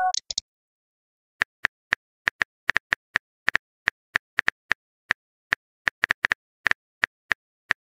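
Phone keyboard typing sound effect: short sharp taps, irregular, about four a second, as a text message is typed. The tail of a message-sent chime fades out at the very start.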